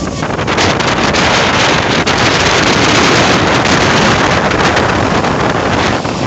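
Strong cyclone wind buffeting the microphone in a loud, continuous rush over heavy surf.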